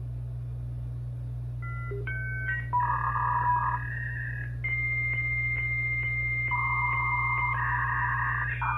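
A 56k dial-up modem connecting, over a steady low hum. About two seconds in come a few short tones, then the handshake: a hissing tone, followed by a steady high answer tone broken by brief clicks about twice a second, with a hissing band that comes and goes beneath it.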